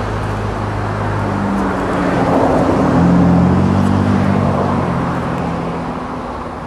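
Road traffic passing close by: vehicle engines and tyres, one vehicle swelling to loudest about three seconds in and then fading away.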